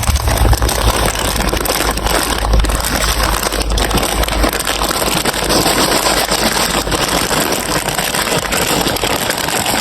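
Many marbles rolling and rattling along a plastic building-block marble run: a steady, dense clattering rumble.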